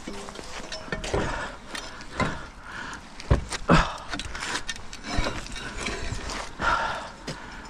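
A rusty scaffold tube stuck to a fishing magnet scraping and knocking against a stone bridge parapet as it is hauled up by rope. There are several separate knocks and scrapes a second or so apart, mixed with the rustle of the rope being handled.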